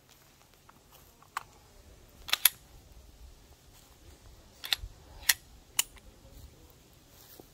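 About six sharp, short clicks with long quiet gaps between them: one about a second in, a close pair near two and a half seconds, then three more between about five and six seconds.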